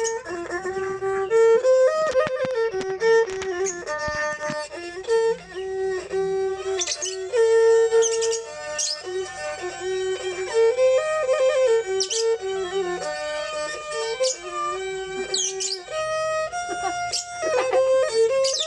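Thai two-string bowed fiddles (so) playing a Kantruem mahori melody together, a continuous bowed tune moving in short steps with held notes.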